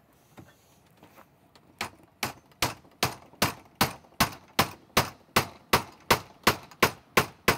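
A square wooden peg being driven into a drilled hole through a birchbark canoe's wooden gunwales: a steady run of sharp strikes, about two and a half a second, starting about two seconds in.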